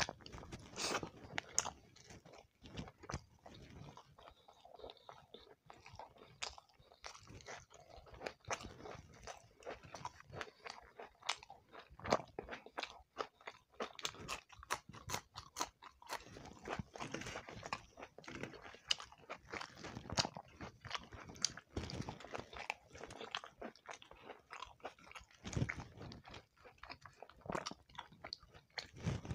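Close-up mouth sounds of a person chewing and biting roti with shrimp curry: wet, irregular smacking and crunching, many small clicks a second throughout.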